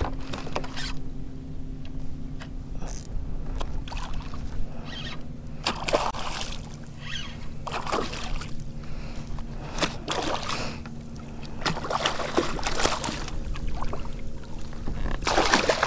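Hooked red drum thrashing and splashing at the water's surface beside a kayak as it is reeled in and netted, in irregular splashes that come closer together after about five seconds, with a louder burst of splashing near the end.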